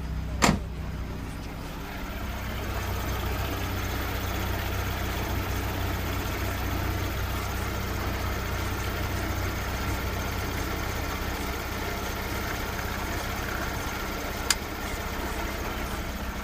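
Lada Priora's VAZ-21124 engine idling with the clutch engaged, a steady whistle coming from the gearbox that the owner puts down to the clutch release bearing. A sharp click about half a second in and another near the end.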